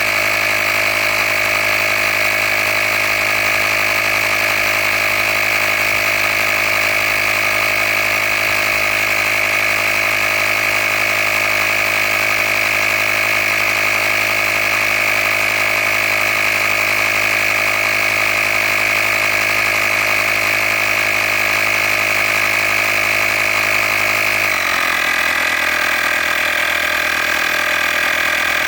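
Handheld cordless tire-inflator air compressor running steadily as it pumps up a flat car tire toward a preset 35 PSI. About 24 seconds in, its pitch drops slightly and it keeps running.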